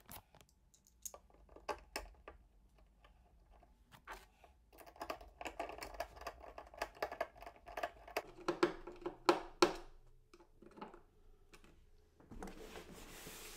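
Small Phillips screwdriver and screws clicking and scraping against the machine's casing as screws are taken out and a handle holder is fitted. There is a denser run of clicks with a few louder knocks in the middle, and a brief rustling scrape near the end.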